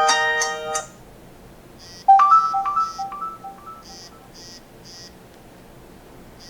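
Nokia 6700 Classic ringtones playing: one electronic melody ends about a second in, and after a short gap the next begins with a quick run of notes that fades away. Under it a high ticking beat repeats about twice a second.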